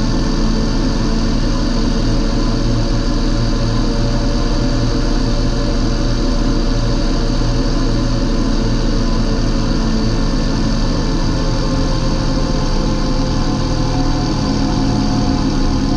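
John Deere 8320 tractor's six-cylinder diesel engine running steadily, with its pitch shifting slightly near the end.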